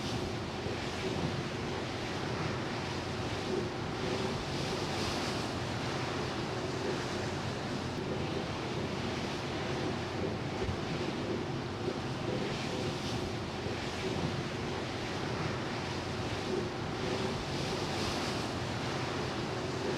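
Ferry Hamayuu under way at sea: the rush of water along the hull and wind on the microphone, swelling every few seconds, over the ship's steady engine hum.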